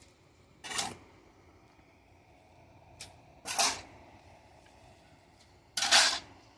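Steel shovel blade scraping and scooping packed dirt off a concrete slab: three short scrapes a couple of seconds apart, with a sharp click just before the second.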